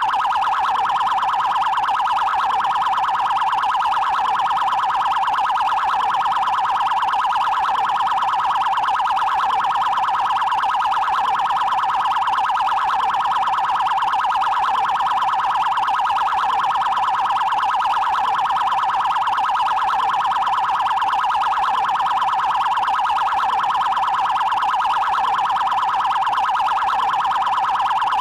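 Electronic police siren of the Brazilian Federal Highway Police (PRF) sounding its 'prioridade' tone: a loud, very fast pulsing trill that holds one pitch without sweeping up or down.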